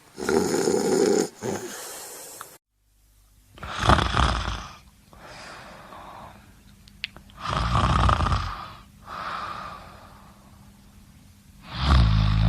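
Snoring in slow cycles: a loud snore about every four seconds, each followed by a softer breath out. The sound cuts off abruptly about two and a half seconds in, then the snoring starts again.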